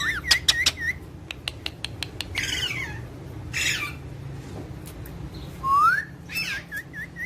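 Pet parrots whistling and squawking: short wavering whistles at the start, two harsh squawks a few seconds in, then a rising whistle and more wavering whistles near the end, with sharp clicks in between.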